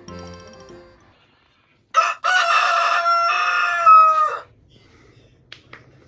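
A rooster crowing once: a short first note, then a long held note that drops in pitch as it ends.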